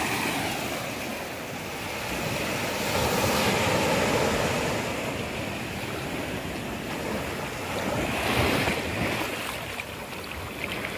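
Ocean surf washing in, swelling louder about three times, with wind buffeting the microphone.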